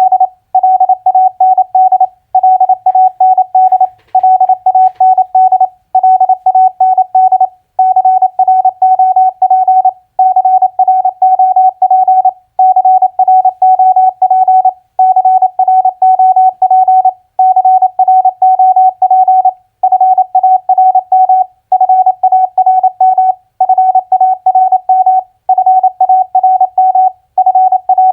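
Morse code practice at 28 words per minute: a single steady tone keyed on and off in quick dots and dashes, sending four-letter words with a short pause about every two seconds.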